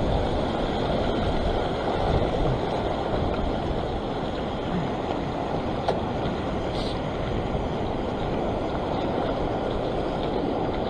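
Sea surf washing over and draining off a rock platform: a steady rush of water.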